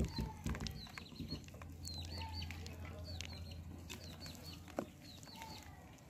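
Faint birds calling, with many short high chirps and a few lower short calls, over soft wet squelches of a hand mixing mashed banana in a bowl and a low steady hum.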